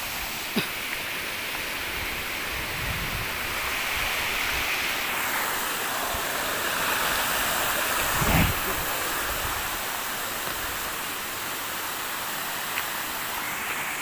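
Rushing stream water running over rocks, a steady noise. About eight seconds in a foot steps into the current with a brief splash, and there is a single sharp click near the start.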